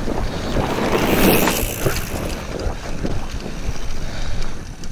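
Wind rushing over the microphone of a handlebar-mounted camera as a mountain bike rides over a dirt jump, with knocks and rattles from the bike and tyres on the dirt. The rush is loudest about a second in.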